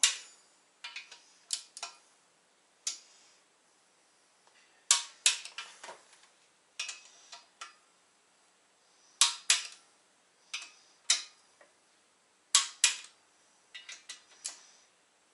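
Click-type torque wrench breaking over as the oil squirter bolts in an RB25DET block are taken up to 40 Nm: loud, sharp clicks, often two in quick succession, every three to four seconds, with lighter clicks of the wrench and fittings between.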